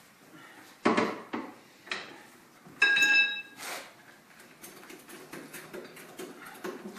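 Metal objects knocking together: three sharp clanks, then a louder clang that rings on for about half a second, followed by a run of light metallic clicks and rattles.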